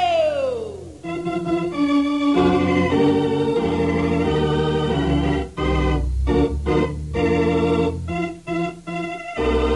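Organ playing a radio show's closing theme music: a falling slide in the first second, then held chords and, past the middle, a run of short repeated chords.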